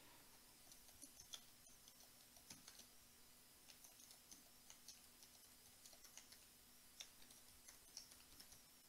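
Faint computer keyboard typing: scattered, irregular keystroke clicks over a faint steady low hum.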